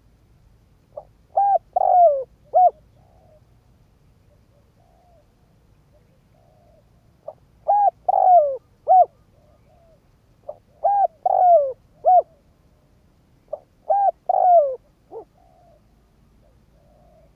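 Spotted dove cooing its song: four phrases, each a quick run of three or four short coos that fall in pitch, with fainter coos between them. The call is a decoy male's territorial cooing, used to provoke wild doves.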